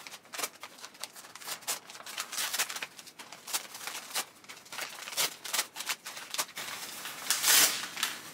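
Paper wrapping crinkling and rustling as it is pulled off a plant by hand: a run of quick crackles, with a louder rustle near the end.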